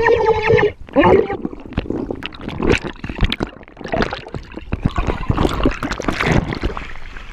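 Water bubbling and churning around an underwater action camera. A short high-pitched cry sounds in the first second, with a second one about a second in.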